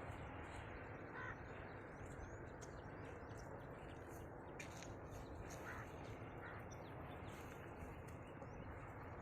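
Faint, steady background noise with a few brief, faint bird calls scattered through it.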